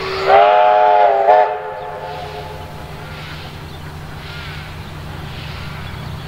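Victorian Railways K-class steam locomotive's whistle sounding for departure: one blast of several tones together, a brief break, then a short final toot, ending about a second and a half in. Afterwards the low, steady rumble of the locomotive working steam as the train gets under way.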